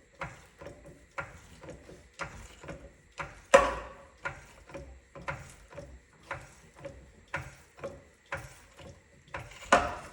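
Floor jack being pumped to lift a car: a regular clicking and knocking from the handle strokes, about two a second, with two heavier knocks, one about a third of the way in and one near the end.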